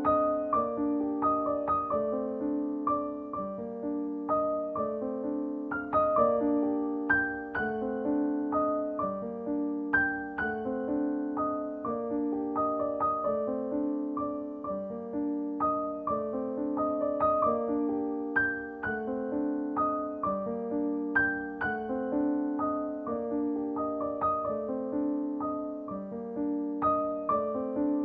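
Background music: a gentle piano piece with slow, evenly paced, sustained notes over a repeating low accompaniment.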